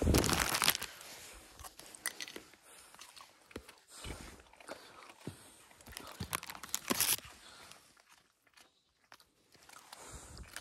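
A small dog crunching and chewing a dry biscuit in scattered short bites. There is a louder crackle at the start, and a quiet gap a little before the end.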